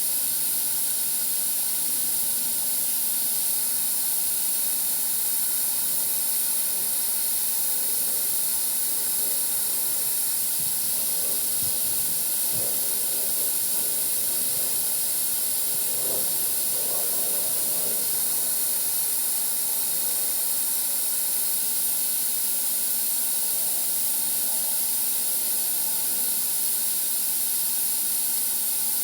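A steady high-pitched hiss, with a few faint knocks and rustles around the middle.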